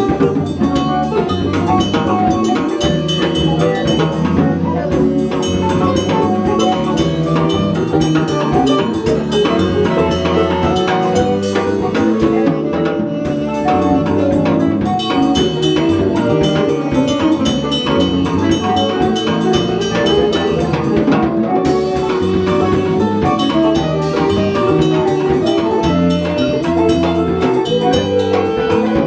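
A live band playing an instrumental piece: drum kit keeping a steady beat under electric guitar and bass.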